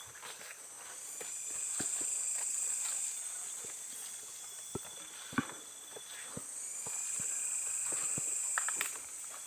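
Forest insects shrilling in a high band that swells and fades twice, with scattered small clicks and snaps, one sharper about five seconds in.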